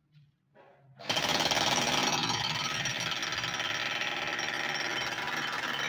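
Corded electric demolition hammer starts about a second in and runs continuously, its chisel rapidly hammering into and breaking up a concrete floor.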